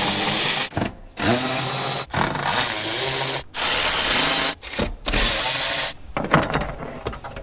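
Cordless power driver spinning out small 3 mm Allen bolts in about five runs of a second or so each, the motor whining up at the start of a run. A few light clicks and rattles follow near the end.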